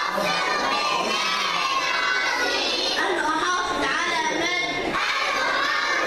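Many young children's voices chanting together loudly, reciting a graduation oath in unison.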